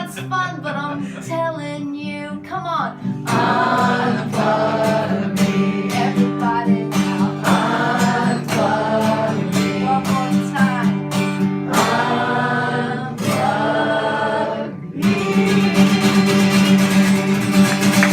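A woman singing held notes without clear words over acoustic guitar. About fifteen seconds in the voice stops and the guitar strums on louder alone.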